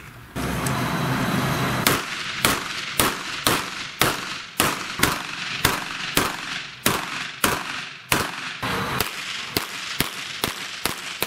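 A rushing noise starts about half a second in. From about two seconds a competition pistol with a muzzle compensator fires a long, steady string of shots, about two a second and roughly eighteen in all. Each shot is a sharp crack with a short echo.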